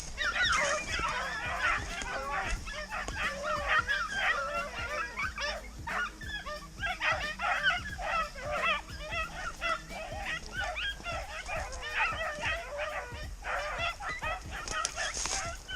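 Several rabbit-hunting hounds baying and yelping together in a dense, overlapping chorus, the sound of a pack giving voice while running a rabbit's scent. The calls ease briefly twice and then pick up again.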